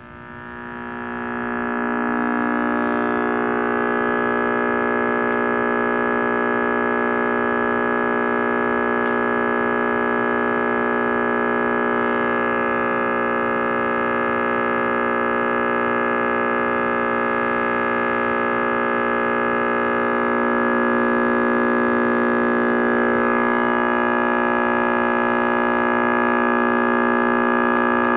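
An RCA Victor X551 All American Five tube radio's speaker giving out a loud, steady hum-like tone rich in overtones instead of a station. It swells up over the first couple of seconds as the tubes warm and then holds. The sound is the sign of a wiring fault: a rewired power switch leaves the rectifier input tied to ground, which the owner takes for the cause of the failure.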